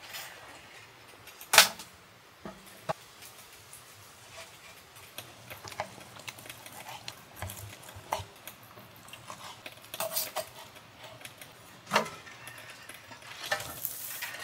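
Metal tongs clicking and clacking against a cutting board and a portable grill's grate as pieces of grilled pork are moved and turned: scattered light knocks, the sharpest about a second and a half in and again near twelve seconds.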